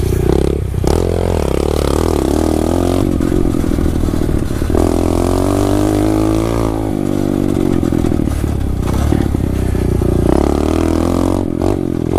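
Pit bike engine running under way, its pitch rising and falling as the throttle opens and closes, with a few knocks near the end.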